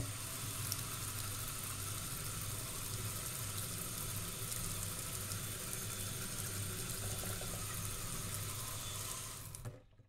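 Kitchen mixer tap running, a steady stream of water splashing into a stainless steel sink basin. The water sound stops near the end.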